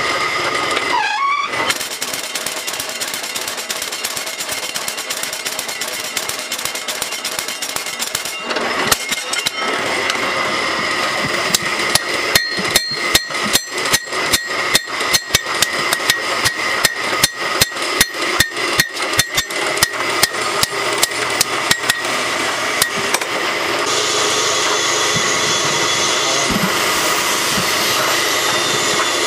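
Hot steel being forged: a mechanical power hammer pounds the bar in rapid strokes, then after a pause a hand hammer strikes it on the anvil about twice a second, each blow ringing. Near the end a steady machine noise takes over.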